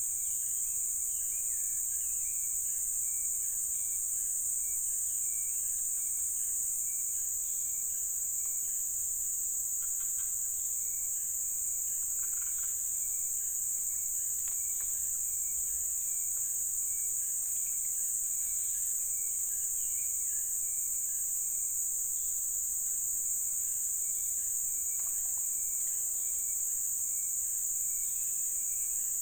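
Steady, high-pitched insect drone of crickets or cicadas, unbroken throughout, with faint short chirps from small birds repeating in the background.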